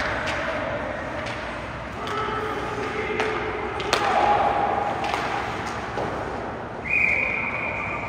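Ice hockey game in a rink: sharp knocks of puck and sticks, and thuds against the boards, over a steady din from the arena, with a long high tone near the end.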